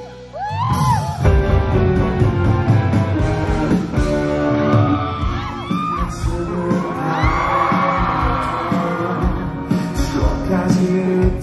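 Live rock band with a male lead vocalist, drums and guitar, heard from the audience; the music dips briefly at the start, then the full band comes back in.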